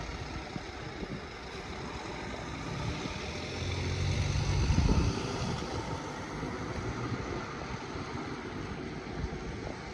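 A vehicle passing, its rumble and noise building to a peak about halfway through and then slowly fading.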